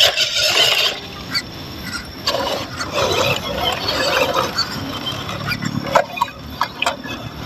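Water splashing and sloshing in a shallow rocky stream as a small 1/12-scale RC crawler wades through it, with scattered sharp clicks and knocks.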